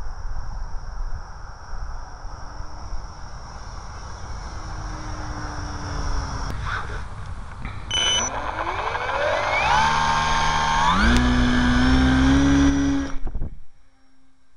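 Wind rush with a thin steady whine from a distant electric model plane. Then the Parkzone P-51D's brushless motor and propeller spin up close by, the whine gliding up in pitch and climbing in steps as the throttle is opened, louder and louder, until it cuts off abruptly near the end.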